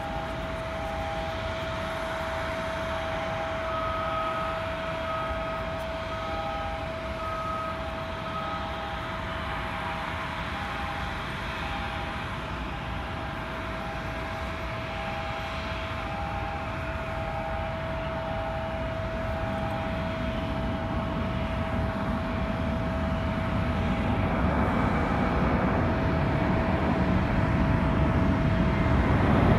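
Jet airliner engines running with a steady whine over a rumble that grows louder over the last several seconds. A repeated electronic beep of about one a second sounds through most of it, joined for about five beeps by a second, higher beep.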